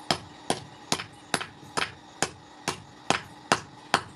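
A hand hammer strikes a small steel knife blank held in tongs on an anvil. About ten steady blows land a little over two a second, each a sharp metallic strike with a short ring.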